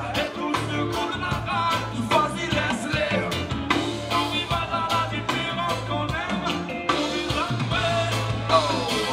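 Live reggae band playing between sung lines: a steady bass line and drum kit under electric guitar and keyboards.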